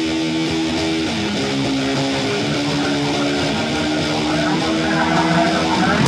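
Instrumental rock music led by a strummed electric guitar, getting louder near the end.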